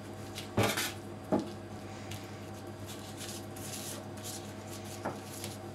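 Baking paper rustling and a fork pressing the edge of a puff-pastry turnover against a stainless steel worktop. There are a few sharp clicks from the fork, the loudest about half a second in, over a steady low hum.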